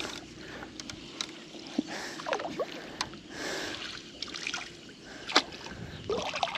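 Scattered knocks and clicks against a small fishing boat, with a short rushing noise about three and a half seconds in and a sharp knock near the end, as a just-landed fish is handled aboard.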